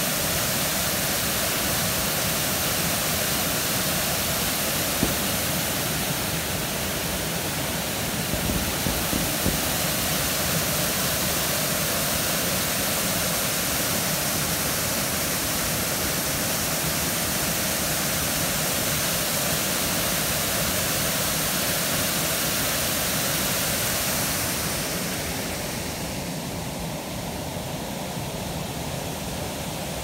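Waterfall pouring into a pool: a steady, even rush of falling water that grows fainter and duller near the end.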